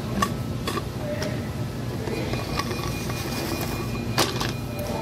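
Steady low rumble of fast-food dining-room background noise, with a few soft clicks early on and one sharper knock about four seconds in.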